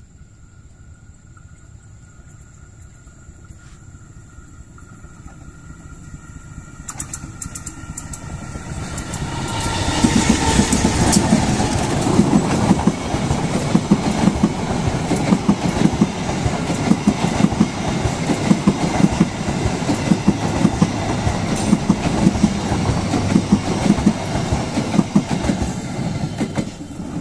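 Baturaden Express, a diesel-hauled passenger train, passing close by. The sound builds over several seconds as the train approaches, then the coaches' wheels clatter rhythmically on the rails for about fifteen seconds. It drops away as the last coach goes past.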